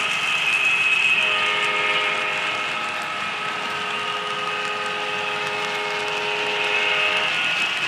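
Freight train sound: a multi-chime train horn holds a long chord that breaks briefly about a second in and cuts off near the end, over the steady rolling noise of the passing cars.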